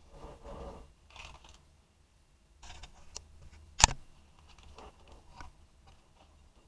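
Handling noises as a cake turntable is turned by hand: soft rustles and scrapes, with one sharp click a little under four seconds in.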